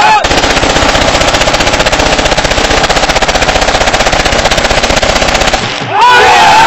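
Sustained rapid automatic gunfire from Kalashnikov-style rifles fired into the air in celebration, a fast unbroken rattle of shots lasting about five seconds. It stops, and near the end loud crowd shouting and cheering takes over.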